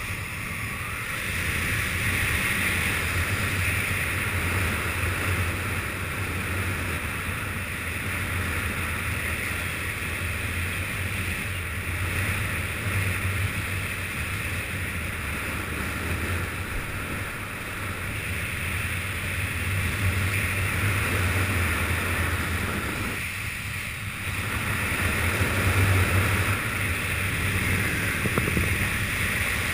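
Wind rushing over a GoPro's microphone during a fast speedflying descent, a steady rush with a brief lull about 23 seconds in.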